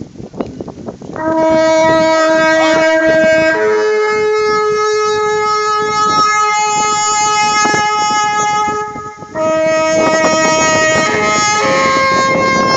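A solo brass horn playing a slow call of long held notes that step upward in pitch, with a brief break about nine seconds in; wind noise before the first note.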